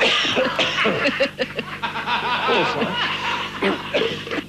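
Laughter in short bursts, mixed with coughing during an on-air coughing fit, with a breathy cough-like rasp near the start.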